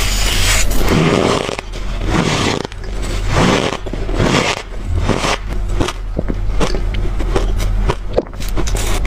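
Hard, freezer-cold crushed ice being bitten and chewed close to the microphone: a dense run of crunching and cracking with many sharp clicks, over a steady low hum.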